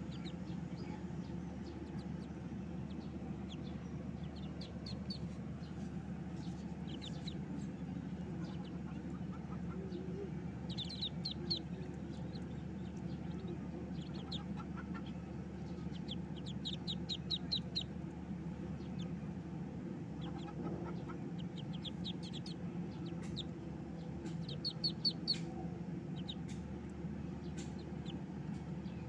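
A brood of ducklings peeping: quick runs of high chirps that come in short clusters several times, over a steady low hum.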